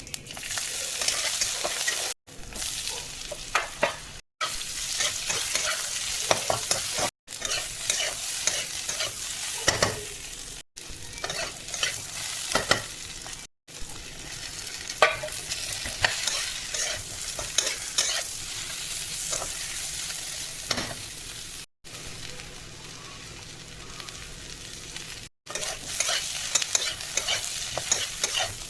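Potatoes frying in oil in a pan with a steady sizzle, and a spatula stirring and scraping against the pan in frequent sharp clicks. The sound drops out abruptly several times, with a quieter stretch of gentler sizzling after one of the cuts.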